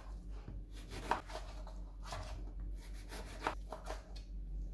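Kitchen knife slicing an orange with its peel into small pieces on a cutting board: a series of short cutting strokes, with two sharp taps as the blade hits the board.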